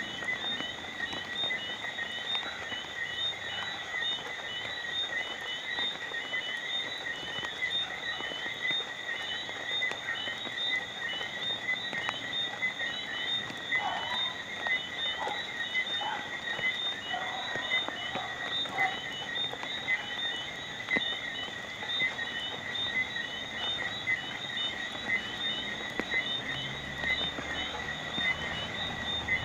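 A chorus of frogs calling steadily, trilling pulses in two high bands, with a few lower croaks in the middle, over light rain falling.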